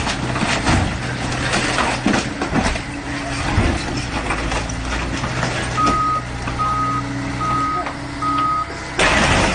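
A heavy vehicle's engine running steadily with a few knocks, then a reversing alarm sounding four even beeps. A loud rush of noise starts suddenly near the end.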